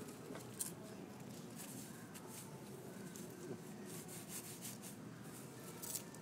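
Faint wet smacks and clicks of a young child licking and biting a chocolate ice-cream cone, over steady quiet background noise; the clearest click comes near the end.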